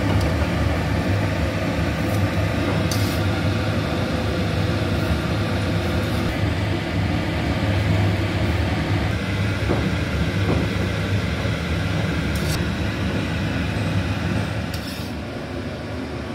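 A steady low mechanical hum, like a fan or appliance running, with a few faint light clicks; the hum drops somewhat about fifteen seconds in.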